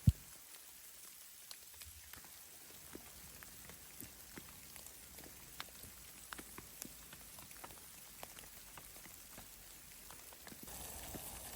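Scattered, irregular ticks of drops or ice pellets hitting a surface, over a faint hiss. One sharp thump comes right at the start, and the hiss grows a little fuller near the end.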